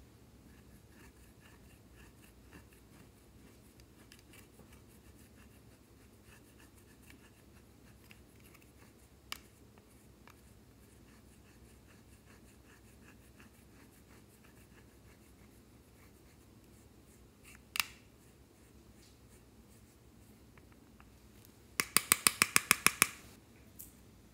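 Small plastic spatula scraping pressed blush powder out of a compact, a faint dry scratching, with a couple of single clicks. Near the end, a quick run of about a dozen sharp taps, the loudest sound.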